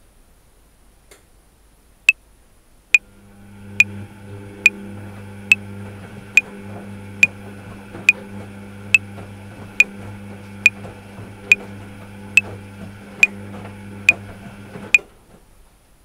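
Metronome clicking at 70 beats per minute: sixteen even clicks, four bars of 4/4. A top-loading washing machine runs underneath with a steady low hum from about a second after the clicks begin. Both stop together near the end.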